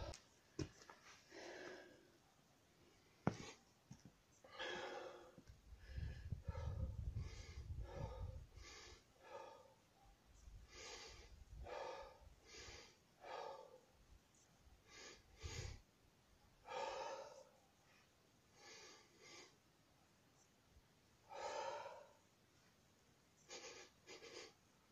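A man breathing hard to recover after sledgehammer work: a long series of deep breaths in and out, each about half a second to a second long. A single sharp click sounds about three seconds in.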